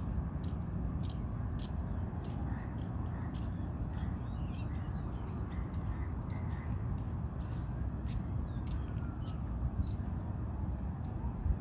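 Outdoor ambience: a steady low rumble with scattered bird calls and a faint, even ticking about every two-thirds of a second.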